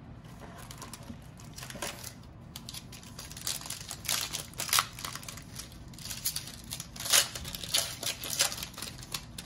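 Foil trading-card pack wrapper being torn open and crinkled by hand. It makes an irregular crackling that grows busier after a couple of seconds and is loudest about seven seconds in.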